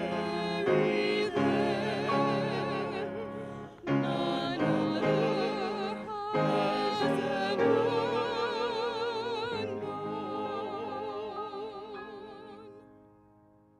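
Small choir of mixed voices singing a hymn with wide vibrato, phrase by phrase, ending on a long held chord that fades away over the last few seconds.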